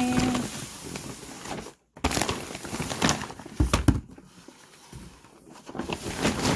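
Plastic grocery packaging rustling and crinkling as it is handled, with sharp crackles, loudest a little past the middle.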